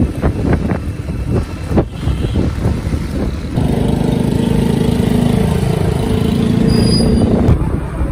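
Wind buffeting and road rumble heard from a moving vehicle. About three and a half seconds in, a steady engine drone with a low hum starts and holds for about four seconds before dropping away near the end.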